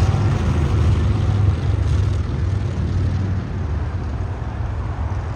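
Two heavy touring motorcycles passing on the road below, their engines making a deep, pulsing rumble that fades as they ride away.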